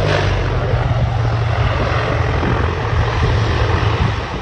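C-123K Provider's engines running with a steady low propeller drone, easing off slightly near the end.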